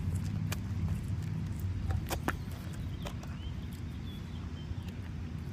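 Outdoor ambience: a steady low rumble with scattered light clicks and taps, two sharper ones near the middle, and a few faint high chirps after them.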